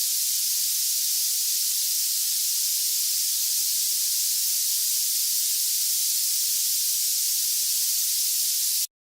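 A steady, high-pitched hiss sound effect, held at an even level for nearly nine seconds and then cut off suddenly.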